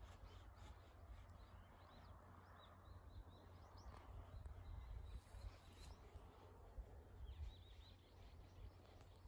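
Faint outdoor ambience: a low wind rumble on the microphone, with a small bird giving short runs of high chirps twice, about two seconds in and again near the end.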